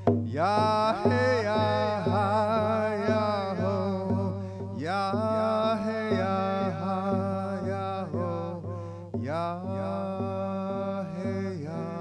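A man singing a chant-like Native American song with long, bending held notes, beating a rawhide hand drum at a steady, even beat.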